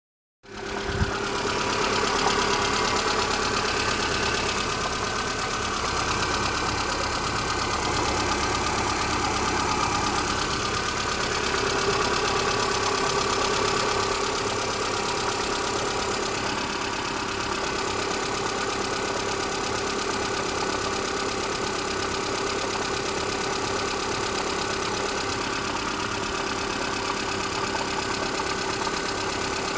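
Car engine idling steadily, cutting in abruptly about half a second in after a moment of silence.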